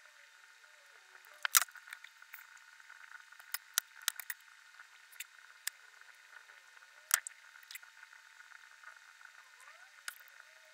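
Small plastic model-kit parts and metal tweezers clicking and tapping as they are handled, over a steady hiss. Scattered sharp clicks, the loudest about a second and a half in and again about seven seconds in.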